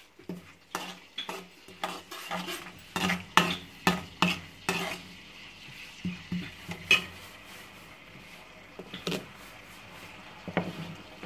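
Metal spoon stirring and scraping in a stainless steel kadai, clinking rapidly for the first five seconds, then a few scattered clinks. Cumin seeds fry in hot oil with a faint sizzle underneath.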